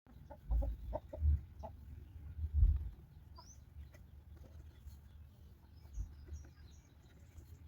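Chickens clucking in short calls, with a few small bird chirps. Several dull low thumps, the loudest about two and a half seconds in.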